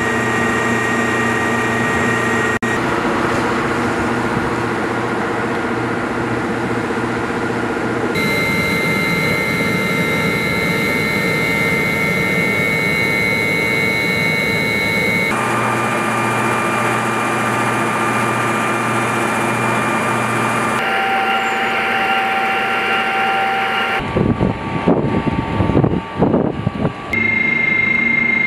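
Su-35S jet fighter engines running on the flight line: a steady turbine whine with high tones over a low hum, its pitch changing abruptly several times. For a few seconds near the end, irregular loud rushing gusts.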